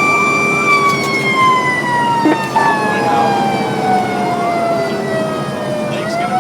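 Fire truck siren sounding in a slow wail: a high note is held briefly, then falls slowly over about five seconds and starts to rise again near the end.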